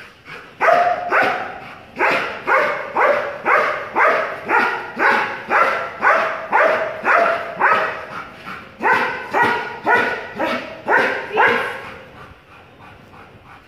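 Dog barking repeatedly at a protection-sport helper in a bite suit, a guard-and-bark, about two barks a second. The barking breaks off briefly about eight seconds in and stops about twelve seconds in.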